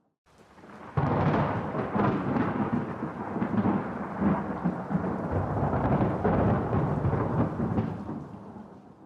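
A clap of thunder: it breaks suddenly about a second in, rumbles and rolls for several seconds, then fades away near the end.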